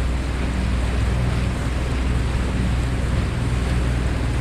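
Boat engine running steadily at trolling speed, a low even hum under wind and water noise.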